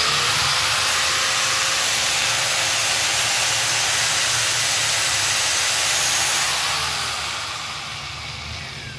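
Hitachi G10SS2 angle grinder running at full speed with no disc fitted: a loud rush of air with a steady whine. About six and a half seconds in it is switched off and the whine falls as it winds down. This is a test run after a new housing bearing and new carbon brushes.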